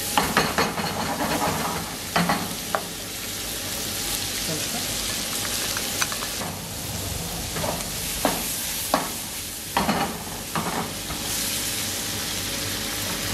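Julienned beef sizzling in oil and butter in a non-stick pan on a gas burner, stirred with a wooden spoon that knocks and scrapes against the pan every second or so.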